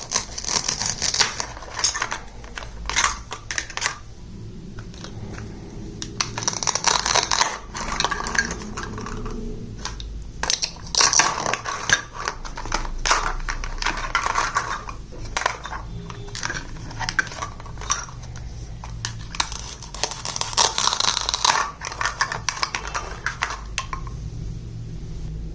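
Small plastic toy kitchen pieces being handled and set down, in clusters of light clicks and clatter, with bursts of rustling every few seconds.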